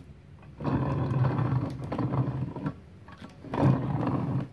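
Cast-iron bench vise body being turned on its swivel base, the upper casting scraping around on the lower turntable in two pushes: a longer one of about two seconds, then a shorter one near the end.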